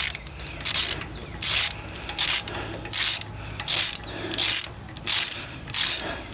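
Ratchet wrench tightening the mounting bolts of a new lawn-tractor starter, in a steady run of rasping strokes about one and a half a second.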